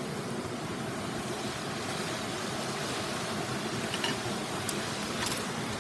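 Steady rushing of a mountain river flowing close by, with a few faint ticks about four to five seconds in.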